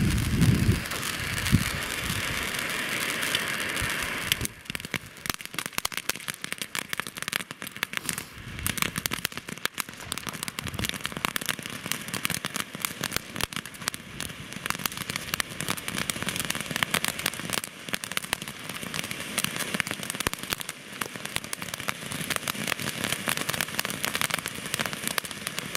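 Jorge JF16 'Color to Blue Silver' firework fountain burning with a steady hiss, which about four and a half seconds in turns to dense crackling that keeps on.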